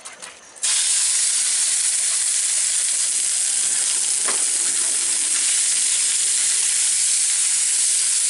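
Minced chicken dropped into hot oil in a frying pan, starting to sizzle suddenly about half a second in and then frying with a loud, steady sizzle, with a brief spatula scrape about four seconds in.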